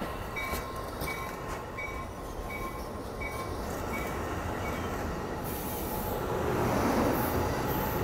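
Amtrak California bilevel passenger cars rolling past as the train pulls out of the station: a steady rumble of wheels on rail that grows louder and hissier in the last few seconds. A faint, short high ding repeats at an even pace through the first half.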